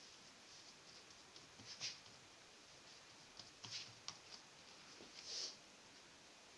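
Faint, soft scrapes and brushes of hands gathering crumbled fresh cheese curd on a stone metate. There are a handful of short strokes, and the longest comes about five seconds in.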